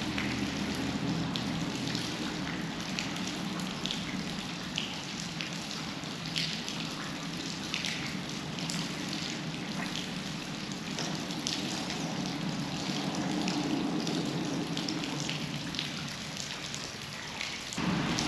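River water running steadily close by, with many small splashes and drips.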